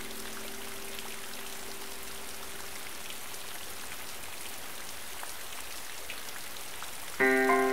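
Steady light rain falling on still pond water, with scattered ticks of single drops. A low held musical note lingers faintly, and near the end a louder chord of background music comes in.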